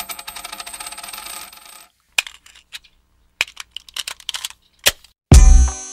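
Opening of a hip hop track: a fast rattle of clicks with a ringing tone for about two seconds, then a few scattered sharp clicks, then heavy bass beats starting near the end, about two beats a second.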